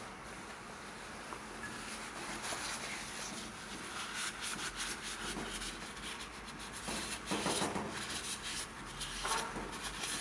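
Gloved hands rubbing and scraping a small black tray against the appliance housing while working it into place, an irregular rustling and scraping that gets louder about seven seconds in.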